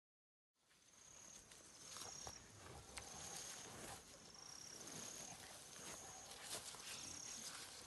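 Faint bush ambience: a high two-step whistled call repeating about every second, over light rustling of dry leaf litter and a few sharp clicks as the sedated pig is handled.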